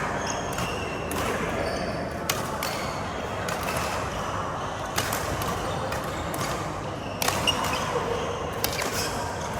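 Badminton rally: rackets hitting the shuttlecock in sharp cracks a second or two apart, with short squeaks from shoes on the court floor over a steady hall din.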